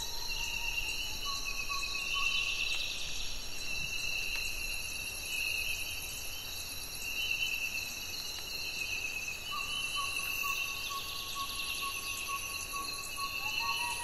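Tropical rainforest ambience: several layers of high-pitched insect trilling running steadily, with scattered bird calls on top, including a pulsing call that comes in about ten seconds in.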